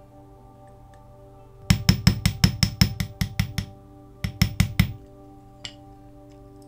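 A small hammer tapping metal fast, about a dozen sharp taps in two seconds, a short pause, then five more, as when peening a rivet to close up a diecast model. Soft background music runs under it.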